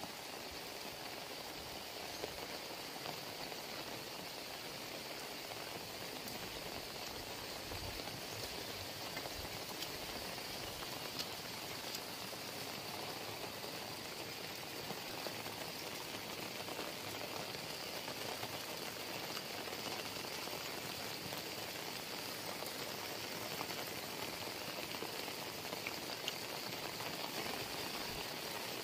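Heavy rain falling steadily, an even hiss that stays the same throughout.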